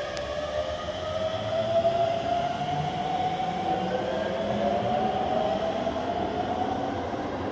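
Electric commuter train pulling out of an underground platform and accelerating away: the motor whine rises steadily in pitch over a low rumble of wheels on the rails.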